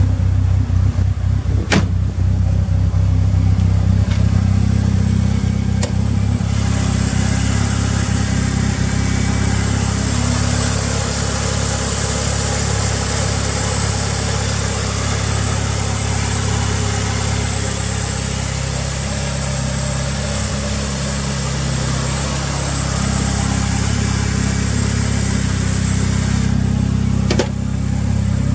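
Tuned Mitsubishi Lancer Evolution VIII's turbocharged 4G63 four-cylinder, fitted with Tomei camshafts and an aftermarket muffler, idling steadily. From about six seconds in until near the end, a higher hiss and mechanical engine-bay noise sit over the idle. A few sharp knocks are heard, one near the start, one around six seconds and one near the end.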